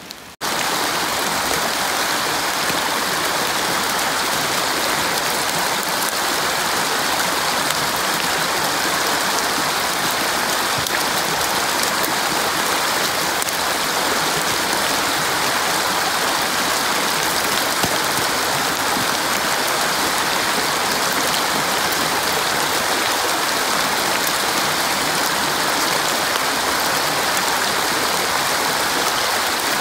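Small rocky stream flowing over stones: a steady, even rush of running water that starts abruptly about half a second in.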